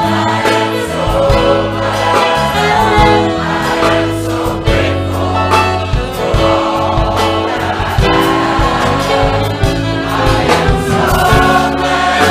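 Gospel choir singing with band accompaniment: held notes over a bass line and a steady beat.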